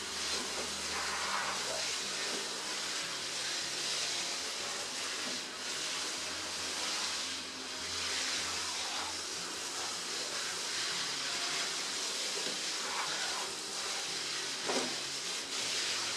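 Water spraying and splashing steadily while a metal fire pit is rinsed, with a light knock near the end.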